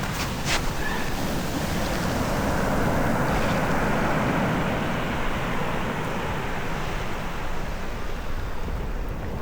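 Ocean surf washing steadily, swelling louder for a few seconds in the middle, with a couple of faint clicks near the start.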